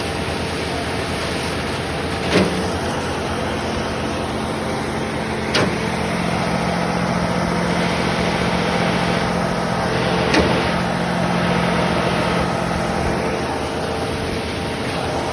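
Concrete pump running with a steady engine drone, broken by three sharp knocks a few seconds apart.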